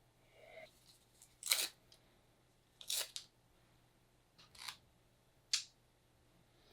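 Razor blade scraping algae and calcium buildup off aquarium glass: about five short scraping strokes, unevenly spaced.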